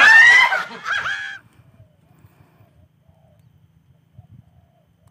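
An elderly woman's loud, high-pitched shrieking laugh, rising in pitch, that breaks off about a second and a half in. After it there is only faint low noise.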